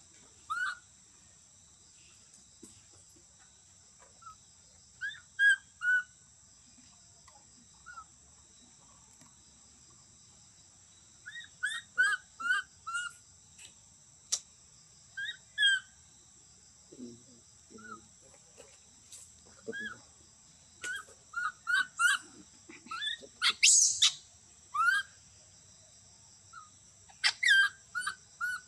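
Baby macaque calling in short, high squeaky chirps that come in quick clusters, with one louder shrill cry near the end. A steady high-pitched drone runs behind.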